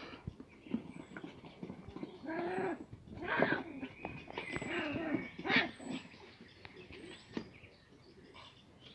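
Schipperke puppies giving short, pitched yips and whines as they play, in two clusters in the middle, with scattered clicks and knocks from paws and steel food bowls on a wooden deck.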